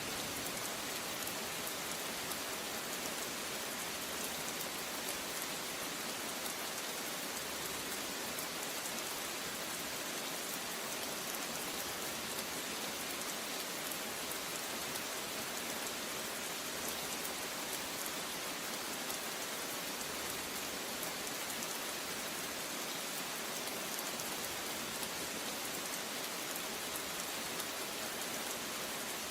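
Steady rain falling, an even hiss of drops with fine pattering, no thunder.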